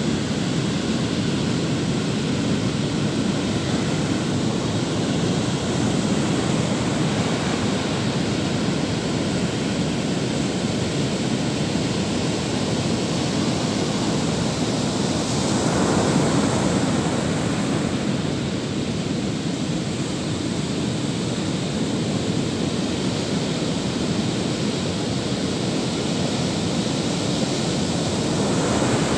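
Ocean surf breaking on a sandy beach: a steady rush of waves, with one louder surge about halfway through.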